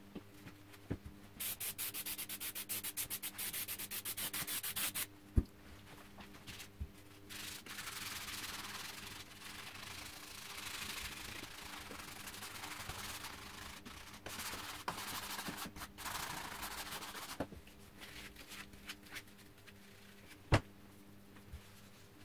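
A brush scrubbing a wooden gunstock coated in acidic cleaning foam: a few seconds of rapid back-and-forth strokes, then a longer stretch of steadier scrubbing. A sharp knock about five seconds in, and another near the end.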